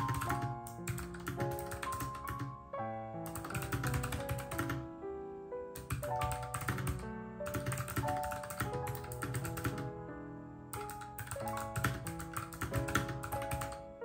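Fast typing on a compact low-profile mechanical keyboard: quick clacking key strokes in runs of one to three seconds with short pauses, over soft background piano music.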